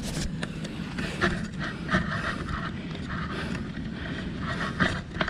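A man breathing hard after ab wheel rollouts, short noisy breaths about two a second, over a steady low rumble.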